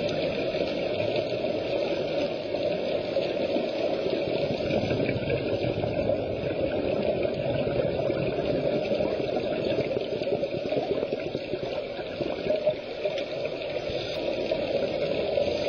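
Steady muffled underwater rushing noise heard through a camera's waterproof housing, with the bubbling of scuba divers' exhaled air.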